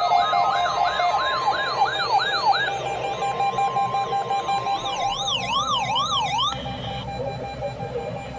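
Electronic siren-like warbling: fast rising-and-falling yelps over a steady beeping tone, changing to slower, wider sweeps about five seconds in. The sweeps stop about a second and a half later, leaving the beeping tone.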